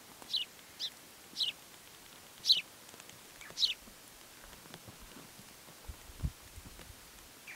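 A small bird calling: five short, high chirps, each dropping in pitch, spaced irregularly over about four seconds. A faint low thump follows about six seconds in.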